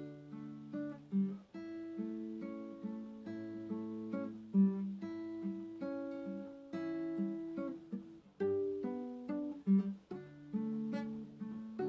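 Acoustic guitar played slowly and softly, plucked notes and arpeggiated chords over low bass notes.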